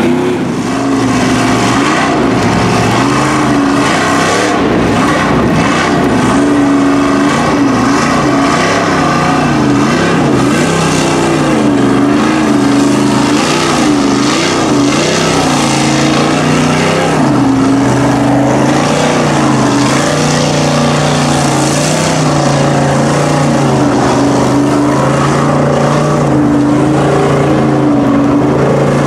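Lifted Chevy pickup truck's engine running under load as it wades through deep flood water, the revs rising and falling, with water churning and splashing around the tires.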